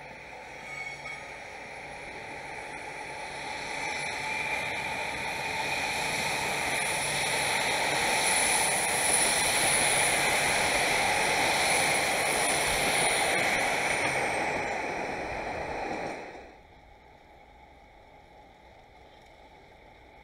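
A train running through a rail yard: wheel-on-rail noise that builds over several seconds, with a steady high whine on top that drops away shortly before the end. The sound cuts off abruptly about sixteen seconds in, leaving a much quieter background.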